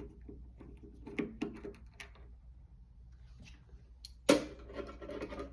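Scattered light clicks and taps of hand tools and parts being handled on a water heater, then one sudden louder knock with a brief rattle about four seconds in.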